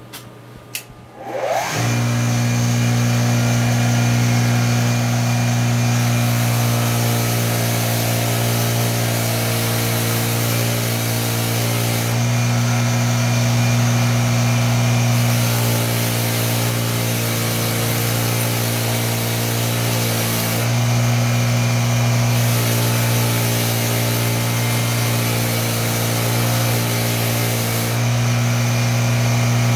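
An electric power tool's motor spins up about a second and a half in, then runs at a steady speed with a constant hum, while a hiss on top of it changes every few seconds. It is used to clean rust and crud off an old vise's steel bar and Acme screw.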